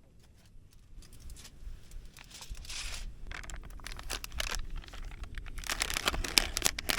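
Plastic food packaging being handled and torn open, crinkling and rustling in irregular bursts that grow louder toward the end.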